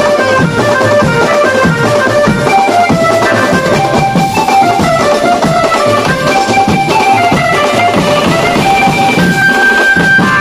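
Mumbai banjo band playing: an amplified Indian banjo (bulbul tarang) carries a stepping melody over a crowd of slung drums beaten with sticks and a bass drum struck with a wooden mallet. The banjo holds one high note near the end.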